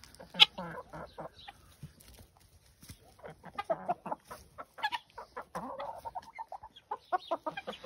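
Chickens clucking and chirping in short, scattered calls while feeding, with one sharp tap about half a second in.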